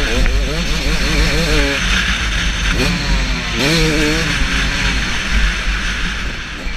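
KTM 250SX two-stroke motocross engine revving up and down over a bumpy dirt track, its pitch wavering rapidly, under heavy wind rush on the helmet camera. The revving fades near the end.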